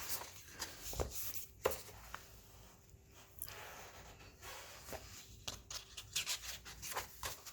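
Paper pages of a booklet being turned and handled: soft rustling with light taps, two sharper knocks about a second in.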